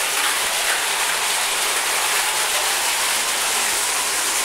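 Hot-spring water pouring from a rock spout into a rock bath, a steady splashing with no let-up.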